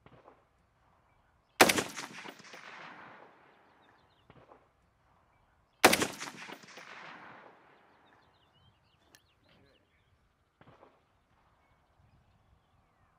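Two rifle shots from an FN SCAR 17S, about four seconds apart, each a sharp crack followed by a rolling echo that fades over a couple of seconds.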